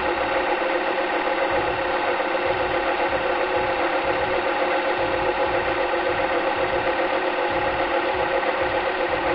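Cine film projector running: a steady mechanical whirr with a fast, even clatter.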